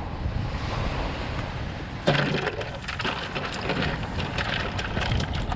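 Wind and surf, then about two seconds in a thud followed by a run of quick, irregular knocks and slaps: a freshly caught fish flopping against the inside of a plastic cooler.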